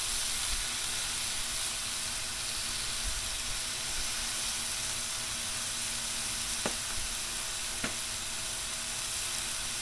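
Chopped beef sizzling steadily on the hot steel flat top of a Blackstone 22-inch griddle. Two faint clicks near the end.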